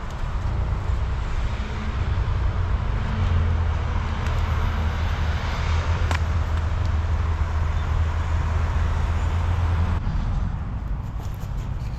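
Road traffic at a busy junction, engines and tyres running, with a steady low engine drone from about three seconds in that stops near the end.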